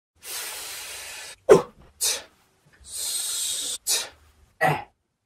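A person's voice making two long hissing breaths and four short, sharp vocal bursts between them.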